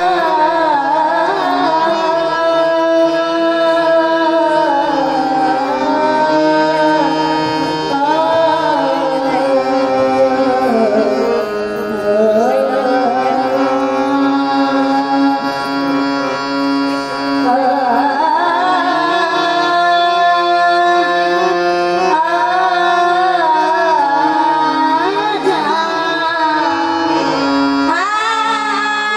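Marathi Varkari kirtan singing: a high voice sings a long, gliding devotional melody over steady held instrumental notes, with light drumming.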